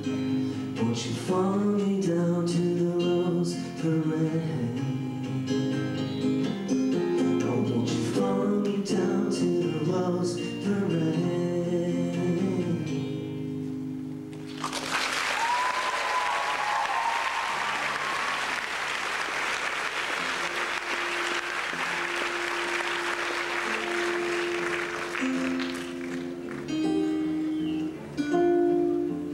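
Solo acoustic guitar played through a PA, ending a song. About halfway through, the audience breaks into applause and cheering, with a whistle, for around ten seconds. Soft guitar picking resumes near the end.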